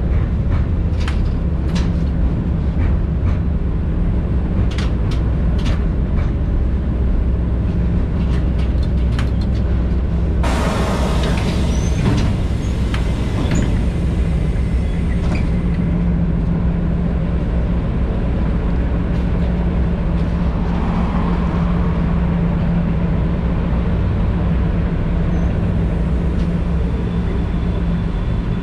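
Interior of an LVS-86K tram slowing to a halt: low running rumble with scattered wheel-on-rail clicks. About ten seconds in, a sudden loud hiss of air lasts several seconds. After that the standing tram gives a steady low hum.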